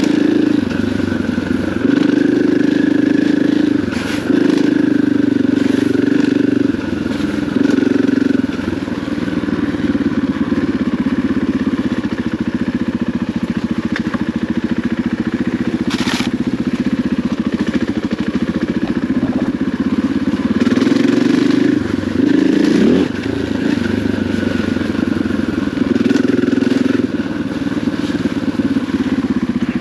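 KTM 500 EXC enduro bike's single-cylinder four-stroke engine running as the bike is ridden, its note rising and falling repeatedly with the throttle. A single sharp click about halfway through.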